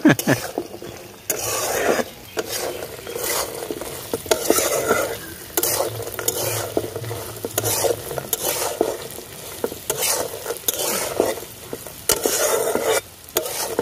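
Metal spatula stirring and scraping soya chunks with onion and capsicum around a hot metal wok, the food sizzling in the oil, with repeated scrapes and clacks of the spatula against the pan.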